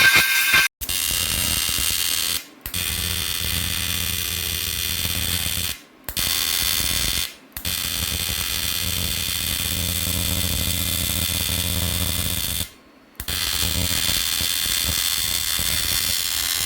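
A rotary grinding tool runs steadily against a welded car wheel rim, grinding off contamination from the weld. It is a continuous high whine over a low hum, broken by several short silent breaks.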